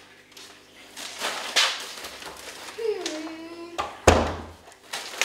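An interior wooden door bangs shut about four seconds in, the loudest sound, with a short stretch of plastic-bag rustling before it.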